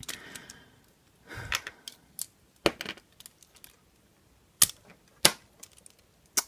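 Plastic Lego bricks being pulled apart and handled: a scatter of sharp clicks and snaps with short bits of rattling, the two loudest snaps about two thirds of the way through.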